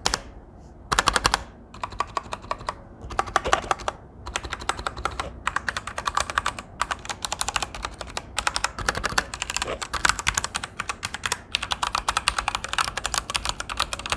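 Typing on a Royal Kludge RK G87 mechanical keyboard with RK Red linear switches: rapid runs of keystrokes with short pauses between them. The keys clack without any switch click, and the sound is quiet.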